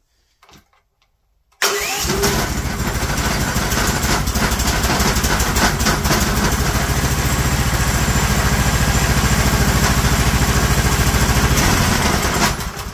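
Bilt Hard 420cc single-cylinder gas engine on its first electric start: the sound cuts in sharply about a second and a half in, keeps an even beat for about eleven seconds, then dies away near the end. The owner takes it for a bad sign.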